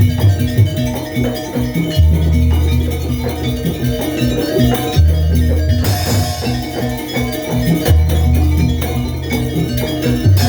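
Live Banyuwangi jaranan gamelan music: dense, rhythmic metal percussion with the jingling strokes of the kluncing (a triangle), over a deep booming low tone that swells about every three seconds.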